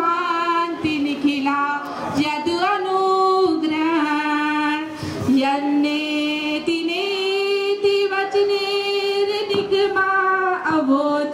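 Background music: a woman singing a slow melody, holding long notes and gliding between pitches.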